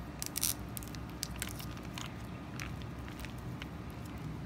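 Soft plastic mayonnaise pouch crinkling and crackling as it is squeezed, in irregular sharp clicks, loudest about half a second in.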